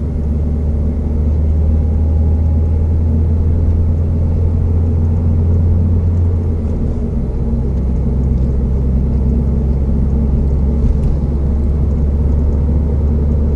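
Subaru WRX STI's turbocharged 2.0-litre flat-four and road noise heard from inside the cabin while driving in traffic: a steady low drone that shifts down a little about halfway through.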